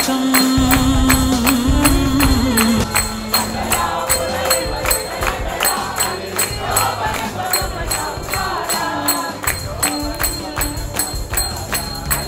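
Indian devotional procession music: a quick, steady beat of metallic percussion strokes under a held melody line.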